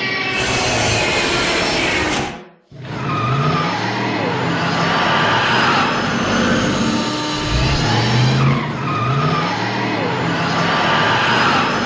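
Film sound effects of a car: one effect fades out about two and a half seconds in, then a new one starts with an engine revving up and down again and again amid tyre-squeal-like noise.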